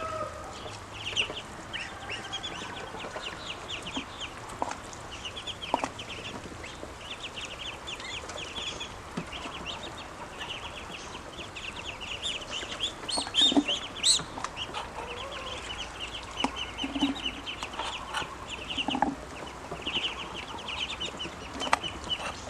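A group of ducklings peeping continuously: many short, high chirps in rapid clusters, with a few light knocks in between.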